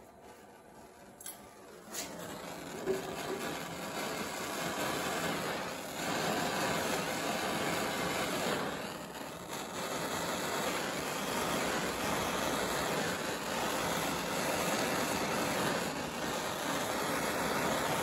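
A hand-held trigger torch, after a couple of clicks near the start, then its flame hissing steadily with a few brief dips while it heats heat-shrink tubing on a battery cable.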